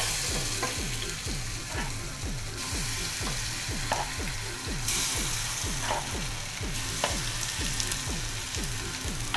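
Egg batter for mini omelettes sizzling in hot oil in a multi-hole frying pan. The hiss swells as fresh spoonfuls of batter go in, with a few light clicks of the spoon against the pan and bowl.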